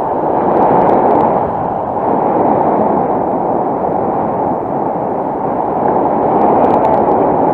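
Steady, loud wind noise from the airflow of a paraglider in flight rushing across the camera microphone.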